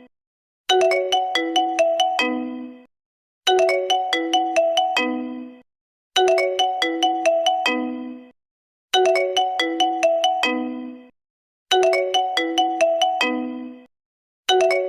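Ringtone melody looping: a quick run of notes that steps down to a low final note, about two seconds long, repeated five times with a short silence between each.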